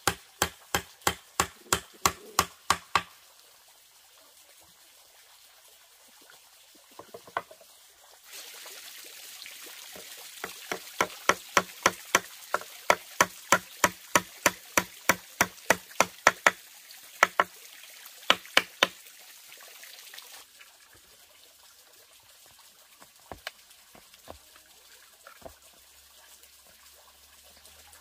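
Quick, even hammer blows, about three or four a second, nailing down the boards of a wooden stool top, in two runs with a few single taps near the end. A steady trickle of water runs behind the second run.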